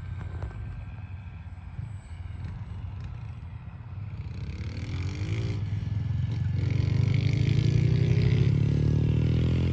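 F3A precision-aerobatics radio-control model airplane flying a pass, its motor and propeller growing louder from about halfway through. Its pitch sweeps down as it goes by, over a steady low rumble.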